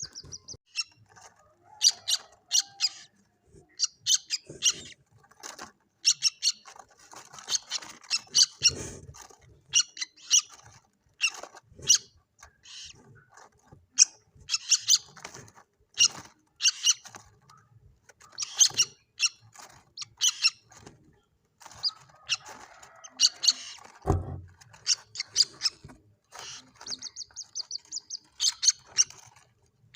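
Common moorhen chicks calling: short, high-pitched peeping calls repeated in quick clusters with brief gaps between them. A low thump sounds about three quarters of the way through.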